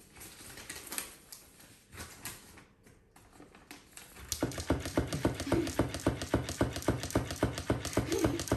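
A few light taps, then, about four seconds in, a small mechanism starts clicking rapidly and evenly, many clicks a second, with a faint steady hum under it.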